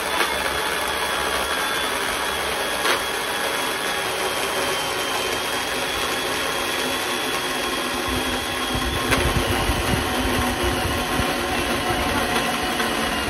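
Makita MUC002G cordless battery chainsaw running steadily with a high whine, its chain cutting into a log. A lower rumble joins about eight and a half seconds in.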